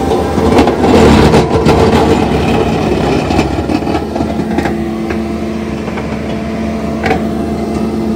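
Skid-steer's engine running under load while its hydraulic rotor-head attachment grinds through soil, stumps and rocks. The grinding is louder and rougher for the first few seconds, with sharp knocks, then steadier, with one more knock near the end.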